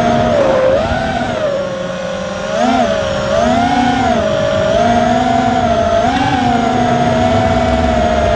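FPV quadcopter's T-Motor F60 III brushless motors whining in flight, the pitch rising and falling with the throttle: it drops and softens about a second in, then swells back up in short surges near three, four and six seconds before settling steady.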